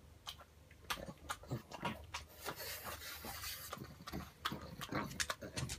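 Pug chewing a cherry from a dog's pudding dessert: irregular wet clicks and smacks of its mouth, many a second.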